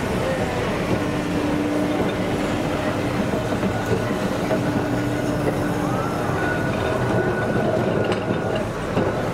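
Blackpool Centenary-class tram no. 648 running past at close range on street track: the rumble of its wheels on the rails, with a steady low hum that stops about six seconds in.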